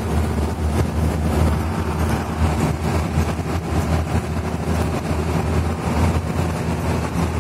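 Bus engine running steadily with road noise, heard from inside the driver's cab while the bus is under way; a low, even hum.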